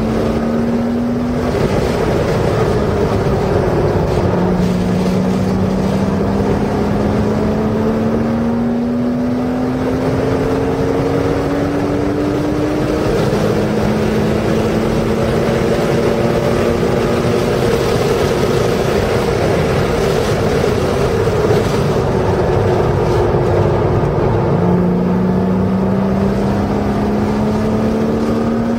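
A Porsche's engine is heard from inside the car under hard acceleration on track. Its pitch climbs steadily, drops back at each gear change and climbs again, with a spell past the middle where it eases off before pulling hard again near the end. Steady wind and tyre noise run underneath.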